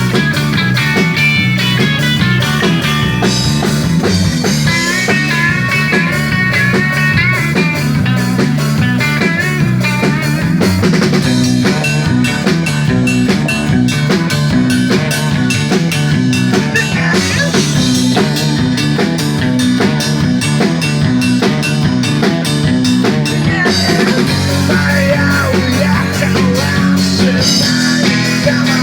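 Rock band playing an instrumental passage with electric guitar, bass and drum kit and no singing. A melodic guitar line runs over the first part, and the low end gets heavier near the end.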